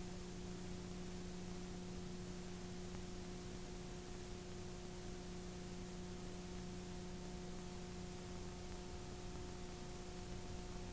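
Steady hiss with a low, even hum from a blank stretch of videotape that carries no program sound.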